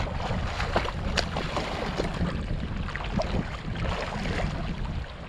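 Wind buffeting the microphone on a small river boat, a steady low rumble, with many short clicks and knocks scattered through it from handling on board.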